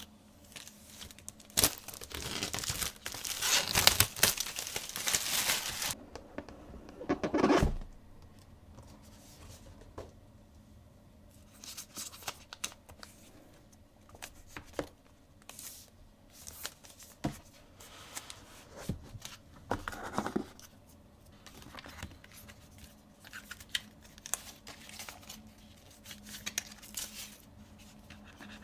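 Plastic wrap being torn off a sealed MacBook Air box: a dense run of tearing and crinkling from about two to six seconds in, then one short loud burst near eight seconds. After that come quieter, intermittent rustles and light knocks as the cardboard box, the laptop and the paper inserts are handled.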